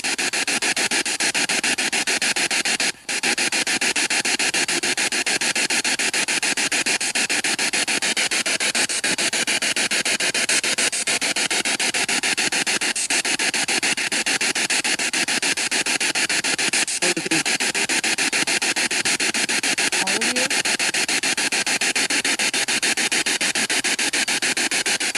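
Ghost box (spirit box) sweeping through radio stations, played through a small speaker: a steady hiss of static chopped into rapid, even pulses, with a brief dropout about three seconds in.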